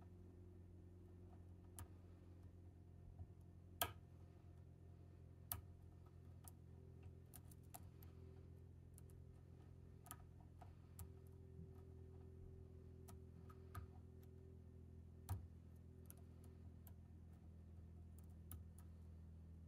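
Faint, scattered metallic ticks and clicks of a hook pick working the pins of an ASSA Guideline pin-tumbler lock cylinder under tension, with a few sharper clicks among them, over a low steady hum.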